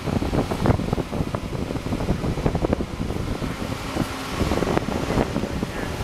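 Boat travel lift's engine running as it drives slowly along carrying a sailboat in its slings, with gusts of wind buffeting the microphone.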